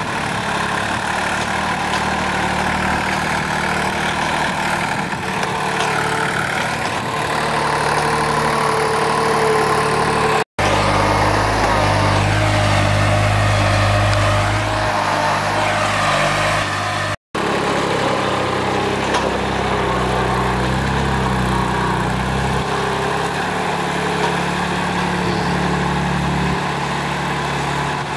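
Carraro 3800 HST compact tractor's diesel engine running steadily while it pulls a subsoiler through garden soil. The sound drops out for an instant twice, about ten and seventeen seconds in.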